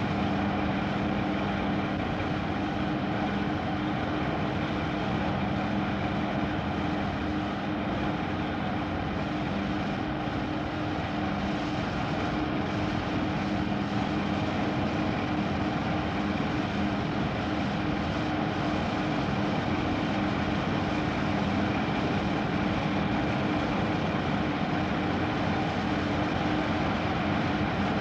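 Steady machine engine drone: a dense even rumble with a constant low hum on top, holding level throughout.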